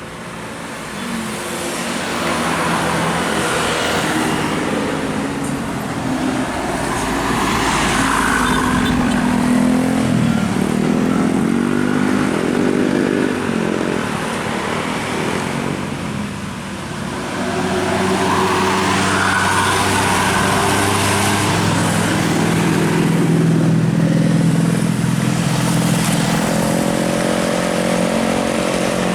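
Tour bus's basuri horn, a multi-tone air horn, playing a tune in stepping notes, with vehicle noise underneath.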